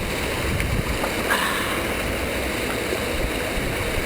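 Small mountain stream flowing over rocks: a steady rush of running water.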